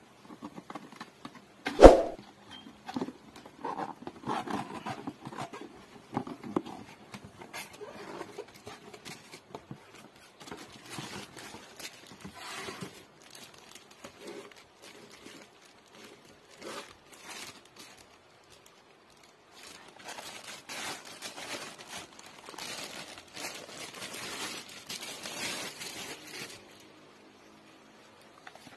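Handling noise from unpacking a helmet: a cardboard box being opened and a clear plastic bag crinkling as it is pulled off, with irregular rustles and small clicks. One loud thump comes about two seconds in.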